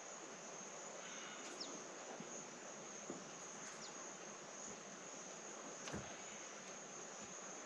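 A steady, high-pitched insect chorus with a few faint clicks and a soft knock about six seconds in.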